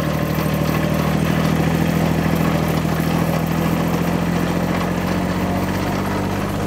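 Farm tractor engine running steadily as it tows a wagon of passengers, heard from the wagon behind it.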